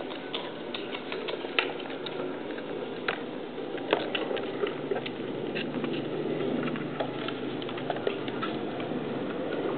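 Miniature pinscher puppies' claws clicking irregularly on a hardwood floor as they scamper about, over steady background noise.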